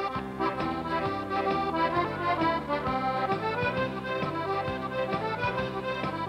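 Accordion (squeeze box) playing a lively Newfoundland-style traditional dance tune over a stepping bass line: the instrumental intro of a song, starting abruptly.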